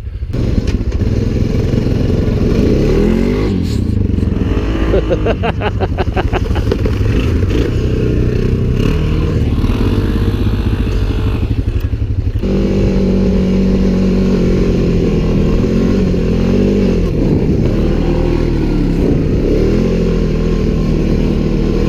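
Off-road vehicle engine running under way, its pitch rising and falling with the throttle and its note changing about twelve seconds in, over a low wind rumble on the microphone. A brief rapid rattle sounds around five to six seconds in.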